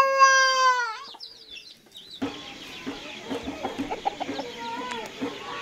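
A rooster's crow, its long held note ending in a downward fall. It is followed by a background of many short clucks and chirps from chickens and small birds outdoors.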